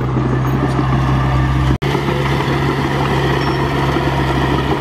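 Komatsu crawler bulldozer's diesel engine running steadily with a deep, even hum while the dozer levels the dirt. The sound breaks off for an instant about two seconds in, then carries on.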